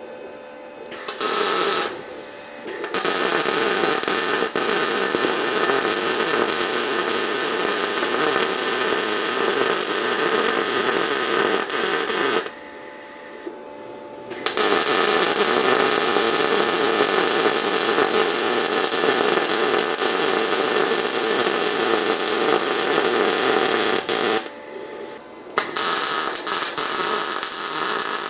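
A power tool running loudly and steadily in long runs, with short stops about 2, 12 and 24 seconds in. Its sound is an even, hissing noise with no clear pitch.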